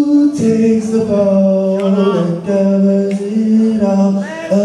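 A man singing slow, long-held notes a cappella into a microphone, with no accompaniment, the pitch stepping between a few steady notes.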